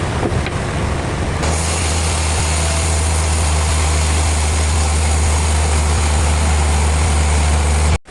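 Heavy machinery running steadily with a strong low hum and a wide hiss over it. The sound changes abruptly about a second and a half in and cuts off sharply near the end.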